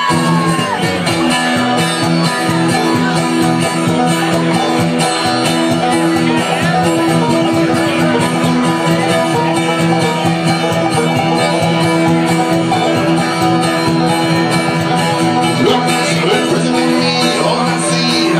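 Bluegrass string band playing an instrumental passage, with picked guitar and banjo over a steady low accompaniment.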